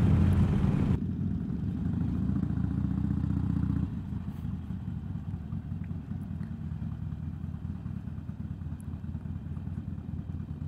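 Motorcycle engine running, with a rushing hiss that cuts off suddenly about a second in; about four seconds in the engine drops to a quieter, steady idle.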